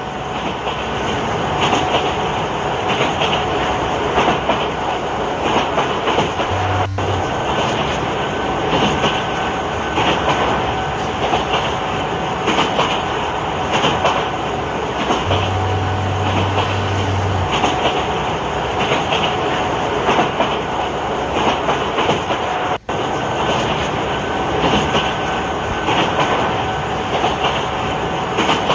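A train running steadily, with a continuous rumble and wheel clatter on the track. The sound drops out briefly about three-quarters of the way through.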